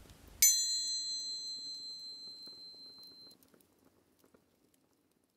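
A bright metallic chime struck once about half a second in, ringing with several high, clear tones that fade away over about three seconds.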